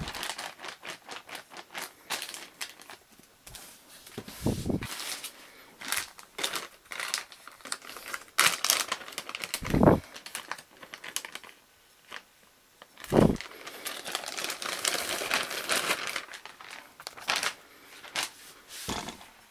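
A clear plastic zip-lock bag crinkling and rustling as hands handle it and pull it open, with the folded latex catsuit sliding out. Three dull thumps come from handling against the table, about 4, 10 and 13 seconds in.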